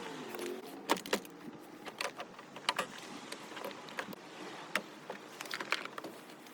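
Irregular sharp clicks and light metallic clinks of tools and parts being handled during work on a car door, with a brief wavering squeak at the very start.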